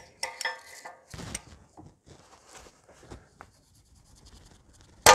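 Oxygen sensor socket and extendable wrench clinking and rubbing on the exhaust as it is worked onto and strained against the seized upstream oxygen sensor, then one sharp metallic crack with a brief ringing near the end as the sensor breaks loose in its threads.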